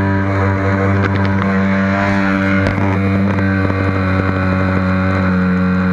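RCMAX 70cc two-stroke petrol engine in a Losi 5IVE-T large-scale RC truck idling at a steady pitch, heard close up from a camera mounted on the chassis.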